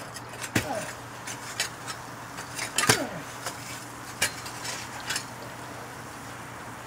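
Metal clinks and knocks of a crucible and its steel pouring shank handled during a cast iron pour. The loudest knock comes about three seconds in, and there are several more before it settles to a steady low hum after about five seconds.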